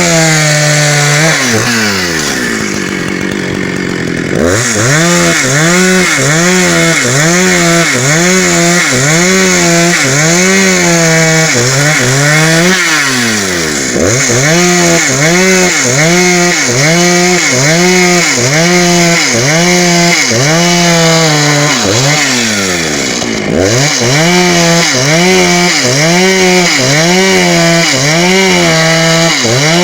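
Husqvarna 272 chainsaw cutting through hard, dry wood. Its engine pitch rises and falls about once a second as the chain loads up in the cut, and it drops back briefly three times, near the start, midway and past two-thirds.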